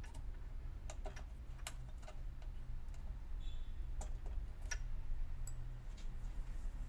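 Scattered light clicks and taps, about ten in all and at no regular pace, over a steady low hum.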